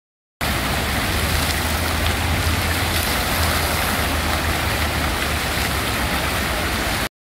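Fountain water jets splashing steadily into a shallow pool, a continuous rushing hiss with a low rumble underneath. The sound starts a moment in and cuts off abruptly near the end.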